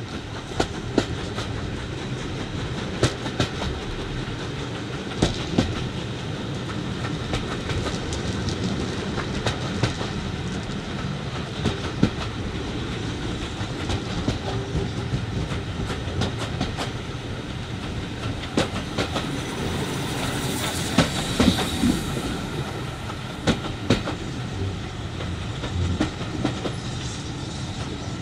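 Passenger carriage running along jointed track, heard from an open carriage window: a steady rumble with irregular clickety-clack of the wheels over rail joints. A brief hiss comes about three quarters of the way through.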